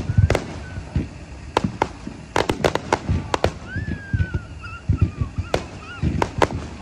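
Fireworks display: a dozen or so sharp bangs at irregular intervals, several in quick clusters, over deep launch thumps.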